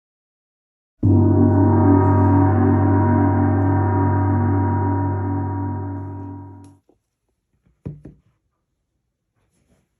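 A single deep, gong-like struck tone that starts suddenly, rings and slowly fades for about six seconds, then cuts off abruptly.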